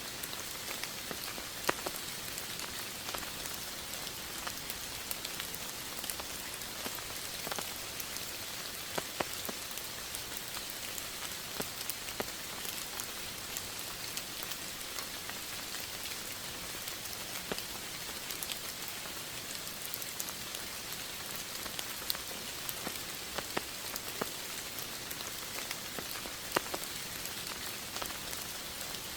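Steady rain falling: a constant even hiss with scattered individual drops ticking.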